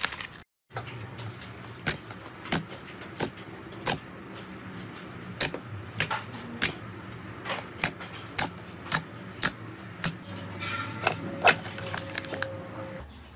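Thick, glossy green slime being pressed and squished by hand, making a string of sharp clicking pops, roughly one or two a second, over a soft squelching rustle.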